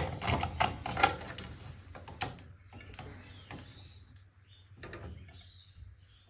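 Clicks and knocks of hard plastic as a nylon bung is pulled out of a TV circuit board, with the board being handled; a sharp click at the start and a cluster of knocks in the first couple of seconds, then fainter scattered ticks.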